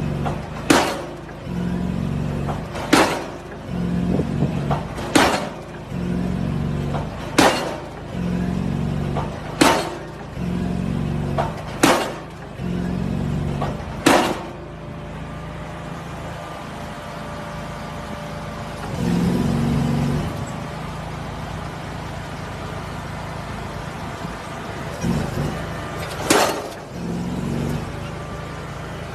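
Diesel pile hammer striking a precast concrete pile, a sharp bang about every two seconds over the rig's steady engine. The blows stop about halfway through, leaving the engine running, and one more single blow comes near the end.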